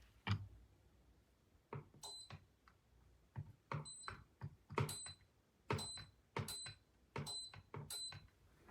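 Remote-controlled ceiling fan's receiver giving short, high beeps as remote buttons are pressed, each beep starting with a sharp click; about seven beeps at irregular intervals, faint.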